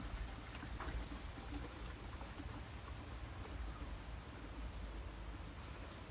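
Faint outdoor ambience: a low, uneven wind rumble on the microphone, with two brief high chirps about four and a half and five and a half seconds in.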